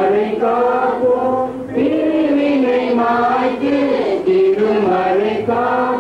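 A choir singing a slow hymn in long held phrases, with a short break between phrases about two seconds in.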